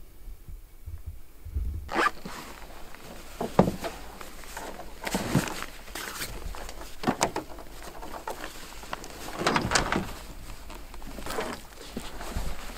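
Slow footsteps crunching, one every second or two, starting about two seconds in.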